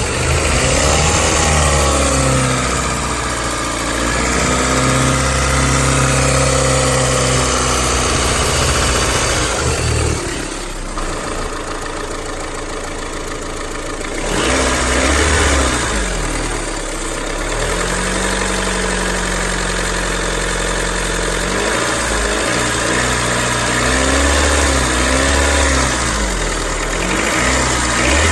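2001–2005 Honda Civic LX engine revved up and down several times, dropping to a quieter idle for a few seconds around the middle. It is run to bring out a strange noise under acceleration, which the owner puts down to a worn timing belt tensioner.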